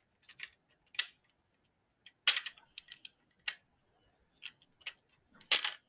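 Hard plastic parts of a toy controller clicking and knocking against each other as the housing is pulled apart, a handful of separate sharp clicks with a couple of quick clusters.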